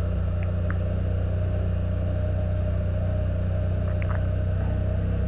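Steady low mechanical rumble, like a motor or engine running, with a few faint short chirps over it.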